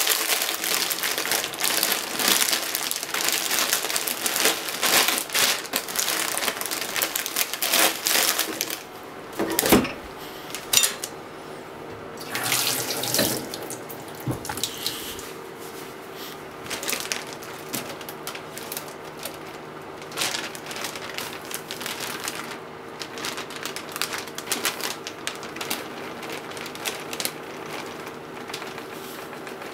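A plastic zip bag crinkling and rustling as it is handled and shaken to sprinkle potato starch, in crackly bursts that are busiest in the first several seconds. A steady low hum runs underneath.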